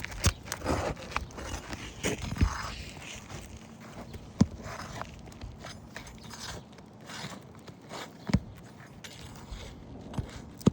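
Work on a shingle roof: irregular scraping and shuffling steps, with a few sharp knocks, as a damaged shingle is removed for replacement.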